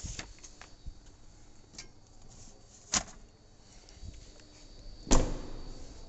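Knocks and thumps of luggage being loaded into a car, with two sharp thumps about three seconds and five seconds in, the second the loudest.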